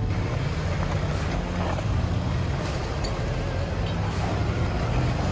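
Four-wheel-drive truck's engine running steadily as it drives through shallow river water, over a constant rush of water and wind noise.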